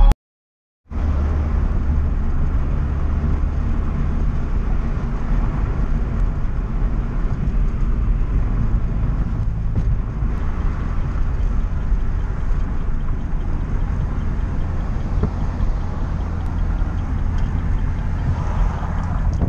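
Chevrolet Cobalt SS driving on a city street, heard from inside the cabin: a steady low engine drone with road and tyre noise. It starts after about a second of silence.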